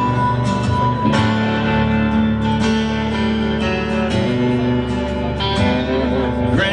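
Music: the guitar intro of a country song, with chords strummed on guitar and no singing yet.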